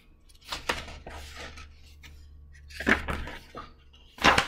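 Pages and cover of a picture book being turned and handled: a few short rustles and flaps of paper, the loudest just before the end.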